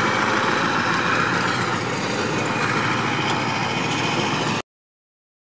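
An engine running steadily at idle, cutting off abruptly about four and a half seconds in.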